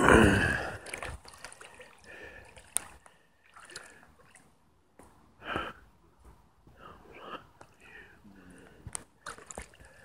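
A loud vocal exclamation in the first second, then quiet water sloshing around a kayak, with brief faint indistinct voices.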